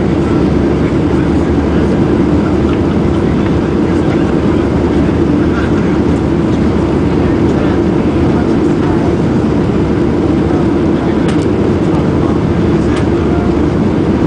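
Steady roar of engine and airflow heard inside the passenger cabin of a Boeing 737-800 during the climb after takeoff, its CFM56 turbofans at climb power; a deep, even rumble with no change in level.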